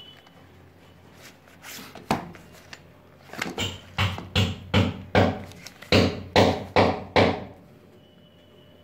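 Small cardboard boxes holding miniature circuit breakers being handled on a hard countertop: a run of about ten sharp knocks and thuds, two or three a second, starting about three seconds in.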